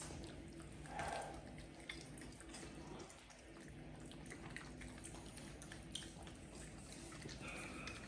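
A raccoon eating crumbs off a stone windowsill: faint, scattered small clicks and ticks of picking and chewing.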